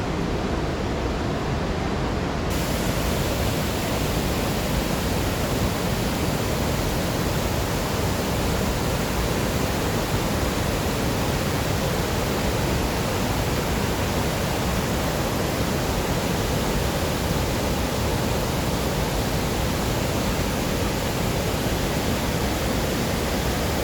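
Iguazu Falls' water pouring down, a loud, steady rushing noise that grows brighter and hissier about two and a half seconds in.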